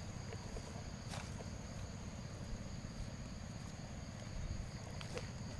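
Steady high chirring of crickets in two unbroken high bands, over a low rumble, with a few faint knocks about a second in and near the end.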